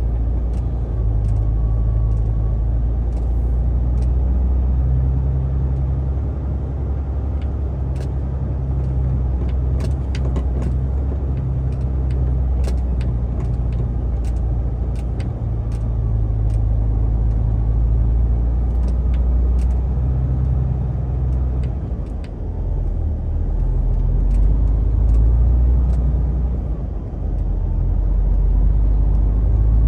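Semi-truck's diesel engine droning steadily while driving, heard from inside the cab, its note shifting a few times, with scattered light clicks.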